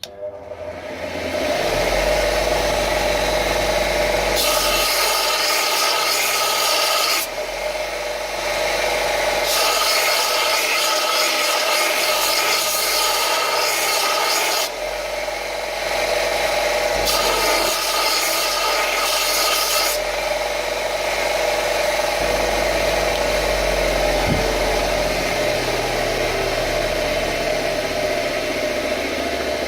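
Linisher (belt sander) running, with three spells of a few seconds each of brass being ground against the belt, grinding plugs in a padlock's pin holes flush with the lock body.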